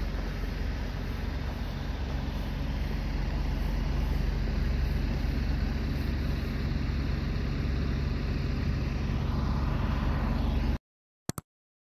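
Steady street traffic rumble that cuts off abruptly near the end, followed by two short clicks.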